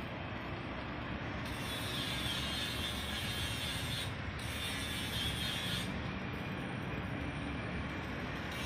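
Electric arc welding crackling in two runs: from about a second and a half in to about four seconds, and again from about four and a half to six seconds. Under it is a steady low mechanical rumble.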